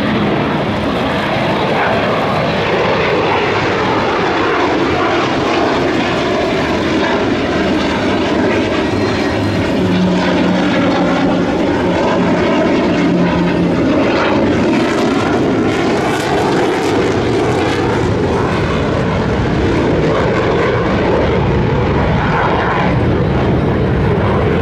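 Dassault Mirage 2000 fighter's single M53 turbofan jet engine, loud and continuous as the jet makes a low pass, with a sweeping, phasing change in tone as it goes by. The afterburner is lit as it pulls away near the end.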